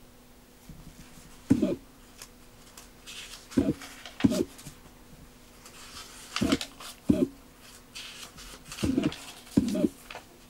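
Pages of an old paper phrase book being turned by hand, with paper rustling. Over it come seven short, louder pitched sounds, mostly in pairs a little under a second apart, with a faint steady hum beneath.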